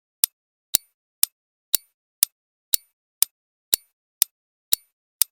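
Quiz countdown timer sound effect: sharp clock-like ticks, evenly spaced at about two a second.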